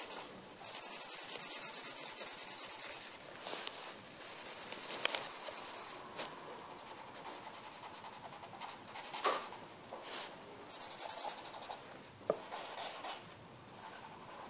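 Blue felt-tip pen scribbling rapidly back and forth on paper, colouring in a large area, in several bouts of strokes with short pauses between them. A sharp tap about five seconds in.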